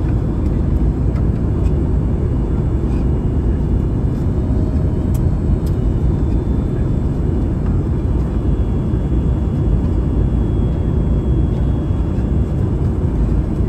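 Steady, loud low rumble of an Airbus A321neo airliner, with its CFM LEAP-1A engines, heard from inside the passenger cabin.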